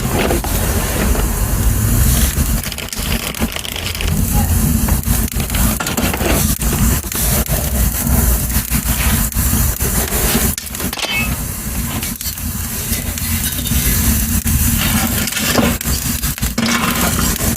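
Small wood fire of dry twigs and split wood crackling in a little stove, with frequent sharp pops and snaps over a steady low rumble.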